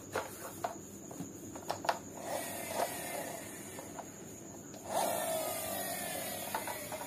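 A plastic toy train being handled by hand, quiet: scattered light clicks and taps, with two stretches of soft scraping or rolling, a short one about two seconds in and a longer one from about five seconds.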